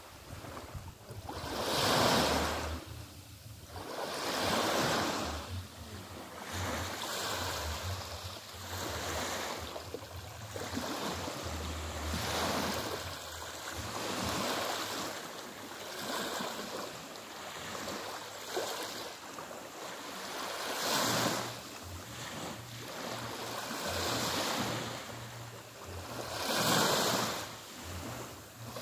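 Small sea waves lapping and washing onto a sandy beach, a soft wash swelling and falling every two to three seconds.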